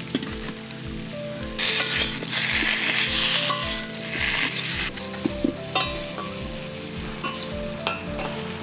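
Potato chunks frying in oil in a metal kadai while being stirred with a metal spatula. The sizzle swells loud from about two seconds in, then drops back about five seconds in to a lower sizzle with scattered clicks and scrapes of the spatula on the pan.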